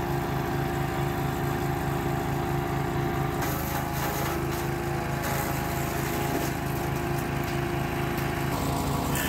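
Small petrol engine running steadily with an even beat; about three and a half seconds in, a louder high hiss joins and the engine note shifts, as if it takes on load.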